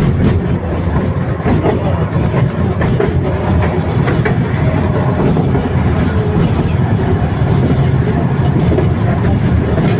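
Tatra T3SU tram running along the track: a steady rumble of wheels on rail and running gear, with scattered light clicks and knocks.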